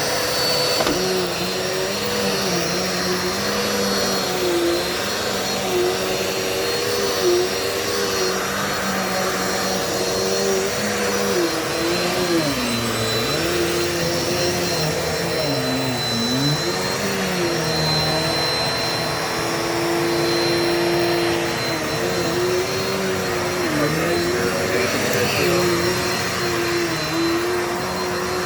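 Dirt Devil Multi-Surface vacuum cleaner running on carpet, a steady motor hum with a high whine, its pitch dipping and recovering several times.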